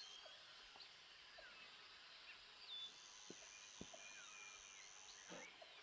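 Near silence: faint, scattered bird chirps from outside and a faint steady high whine, with a couple of soft ticks from hands pulling cactus roots apart in loose potting soil.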